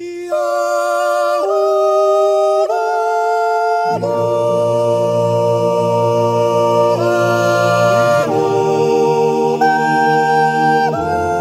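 Background music: unaccompanied voices singing slow, held chords that change every second or so, with a low part joining about four seconds in.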